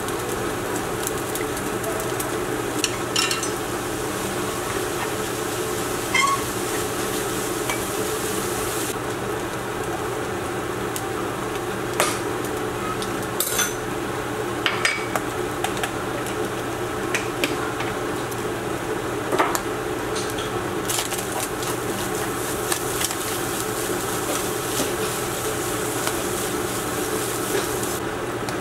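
Egg and diced vegetables sizzling steadily in a nonstick wok while a wooden spatula stirs and scrapes through them, with scattered clicks of the spatula against the pan.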